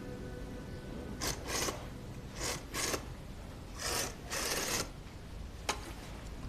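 Short rasping scrapes in pairs, as of a stroke back and forth, three times over, then a single sharp click near the end.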